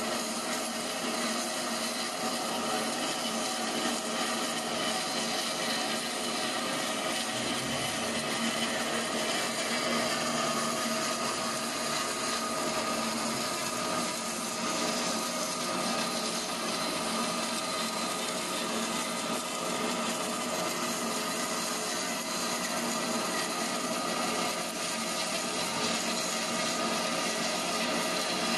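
CNC foam cutter's fast-running abrasive cutting wire sawing through rigid PUR foam: a steady sawing noise with several steady whining tones.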